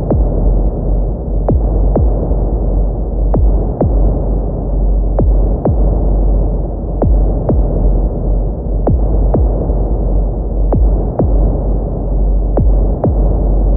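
Heartbeat sound effect: slow lub-dub double beats, about one pair every two seconds, over a constant deep rumbling drone.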